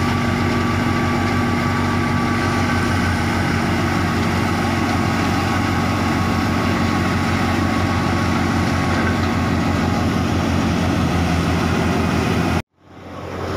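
Thresher driven by a New Holland Fiat 480 diesel tractor, running steadily under load as mustard crop is fed in by hand: a continuous heavy engine drone with a steady machine hum. The sound cuts off abruptly near the end and fades back in.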